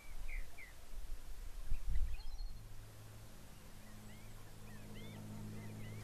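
Short high bird calls over a low rumble of wind on an outdoor webcam microphone, with the rumble strongest around two seconds in. After a cut partway through, a steady electrical hum sets in, with faint, looping bird chirps over it near the end.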